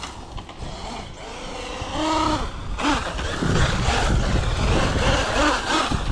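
Brushless electric motor of a large RC desert truck whining up and down in pitch as the throttle is blipped, with the tires spinning and scrabbling through dry dirt.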